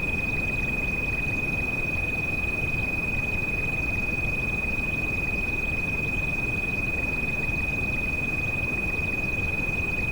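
A steady, high-pitched pure tone held without a break, the tinnitus treatment frequency, over a constant, deep rain noise.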